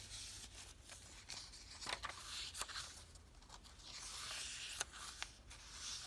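Paper pages and cards of a handmade journal rustling softly as they are turned and flipped by hand, with a few light clicks and taps.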